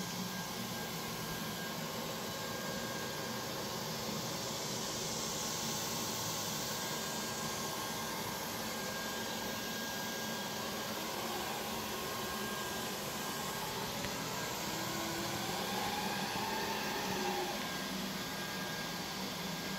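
Neato Botvac robot vacuum running, a steady whir of suction motor and brushes as it leaves its dock and drives across carpet.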